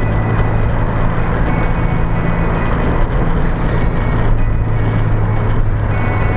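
Steady drone of car road noise at freeway speed, heard by the dash-mounted Mobius v3 action camera's own microphone, with a rattle from a loose part inside the camera.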